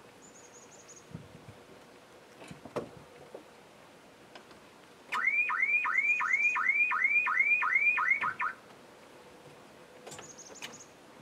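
Land Rover Defender 110's vehicle alarm going off: a loud repeating electronic whoop, about three rising-and-falling chirps a second, starting about five seconds in and cutting off after about three and a half seconds. A few faint knocks come before it.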